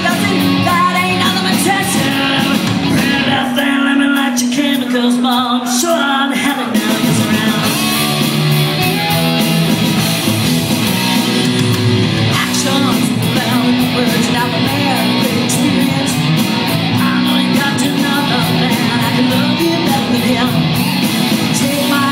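Live band music with electric guitar and a voice singing.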